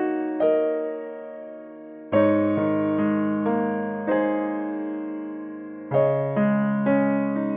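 Background piano music: soft chords struck every second or two and left to ring and fade.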